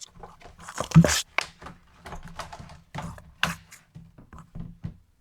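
Stiff plastic clamshell packaging crackling and clicking in irregular bursts as it is pried apart by hand, with a sharp crack about a second in.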